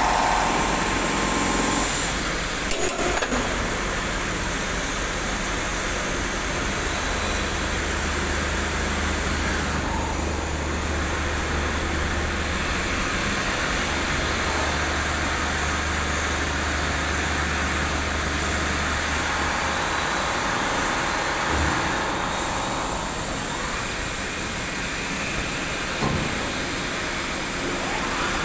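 Auto-loading CNC machine running through its cycle: steady machine noise, with a low hum that comes in about six seconds in and stops around twenty seconds, and a few short knocks.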